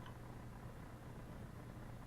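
Steady low electrical hum with a faint even hiss, and a small click right at the start.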